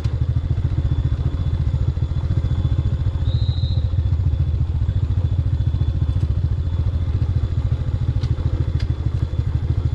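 Motorcycle engine running at a steady low speed, with a rapid, even low pulsing and no revving.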